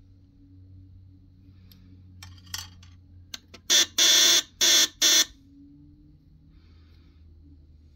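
Electric Jack Straws game's battery buzzer sounding in four short blasts in quick succession, about three and a half seconds in: the signal that the metal tweezers have touched the metal plate and closed the circuit. Just before, faint scraping and clicking of the tweezers against the wooden sticks.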